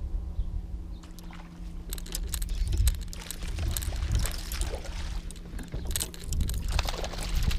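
Water splashing and sloshing against a kayak, in irregular bursts, over a constant low rumble of wind on the microphone and a faint steady hum.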